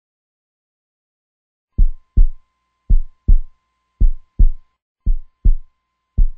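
Heartbeat sound effect: a deep double thump, lub-dub, repeating about once a second. It starts after about two seconds of silence.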